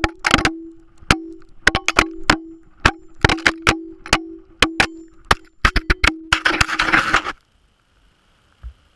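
A GoPro camera tumbling down a steep shale slope: rapid, irregular clacks and knocks as it strikes rock after rock, with a steady low tone under many of the hits. It ends in a second of dense scraping and clattering, then cuts off suddenly about seven and a half seconds in as the camera comes to rest.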